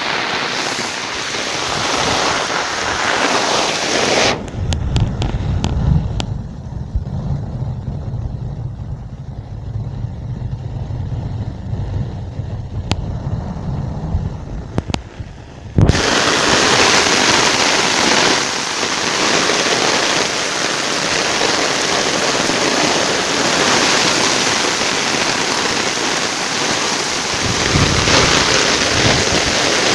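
Heavy tropical rain pouring down over running floodwater, a steady loud hiss. From about four seconds in it turns muffled, with a low rumble and a few knocks, then the full hiss cuts back in suddenly about sixteen seconds in.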